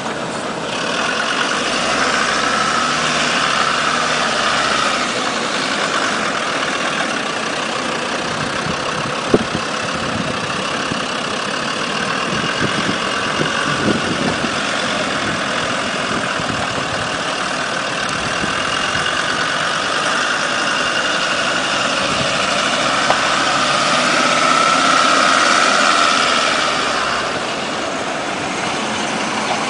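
Land Rover Discovery's engine running as it crawls over dirt mounds, swelling in level twice, near the start and again near the end. A single sharp knock about nine seconds in.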